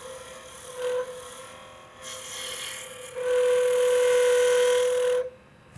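Spindle roughing gouge cutting a spinning wooden pen blank on a lathe: a hissing cut with a steady whistling tone through it. The cuts come in spells, the longest and loudest in the second half, and stop sharply near the end.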